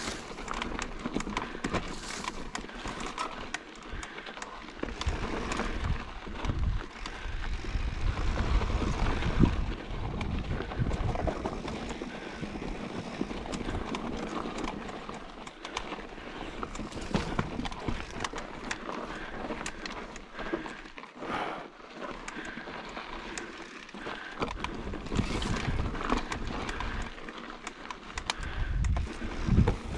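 Mountain bike riding down a rough dirt trail: tyres rolling over rock and dirt, with frequent knocks and rattles from the bike over the rough ground. Gusts of wind on the microphone come and go, heaviest about a third of the way in and again near the end.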